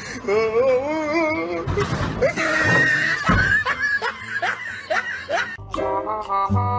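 A person laughing with a wavering, shaky pitch, then a loud shriek about two seconds in. Light comic music with a bouncy bass starts near the end.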